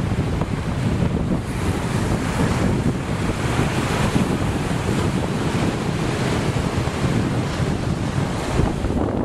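Wind buffeting the microphone in a steady, gusty rumble over the wash of sea waves.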